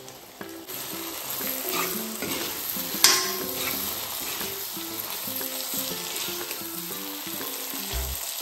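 Food frying in hot oil in a pan, sizzling and being stirred, the sizzle growing louder under a second in. One sharp clatter about three seconds in is the loudest moment.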